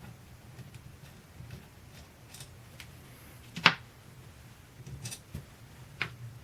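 Metal clicks and light clatter of hand tools and parts during disassembly of a car starter and its solenoid. The loudest, sharpest click comes a little past halfway, a second one near the end.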